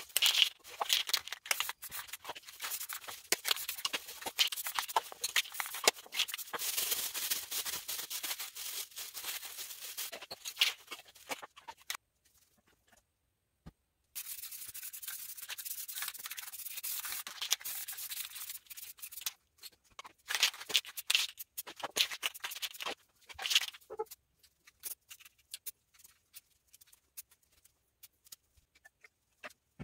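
Aerosol spray paint cans hissing as paint is sprayed, in long runs at first, then in shorter bursts with gaps, mixed with small clicks and ticks.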